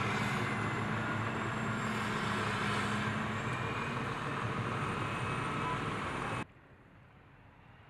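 M1150 Assault Breacher Vehicle driving, its gas-turbine engine and tracks making loud, steady noise. The noise cuts off abruptly about six and a half seconds in, leaving only faint background noise.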